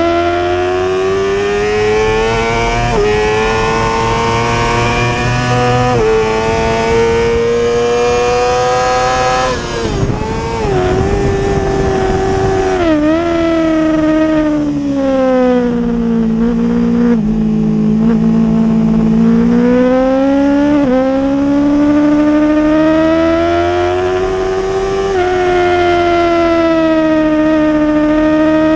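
Yamaha YZF-R6's inline-four engine heard from onboard at high revs, the pitch climbing through the gears and dropping under braking and downshifts. The pitch drops sharply about ten seconds in, stays low for a stretch past the middle, then climbs again.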